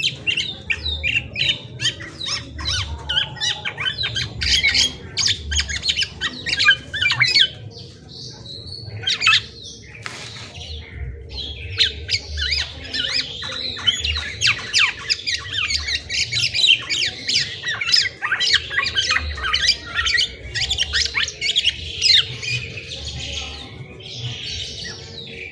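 Black-naped oriole (kepodang) calling in long, fast runs of high notes, with a short pause about eight seconds in.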